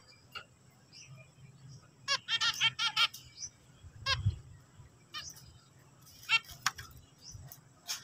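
Zebra finches singing in clusters of short, rapid notes: about two seconds in, again just after four seconds, and around six seconds in, with quiet gaps between. A soft low thump comes just after four seconds.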